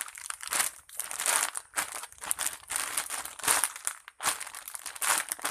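Squishy toy squeezed and stretched by hand, giving a run of crinkly rustling bursts, each lasting under a second.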